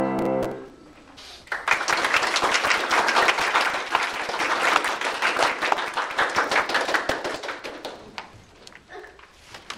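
A grand piano's last chord dies away, then an audience applauds for several seconds, the clapping thinning out near the end.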